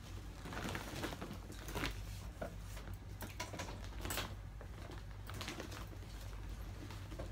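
Plastic bags and clothing rustling and crinkling as garments are handled and packed into a large plastic storage bag, in irregular short rustles over a low steady hum.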